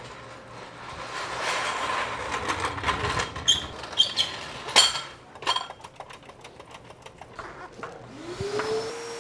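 Steel floor jack rolled across a concrete floor, its wheels rattling, then several sharp metal clanks as it is set in place.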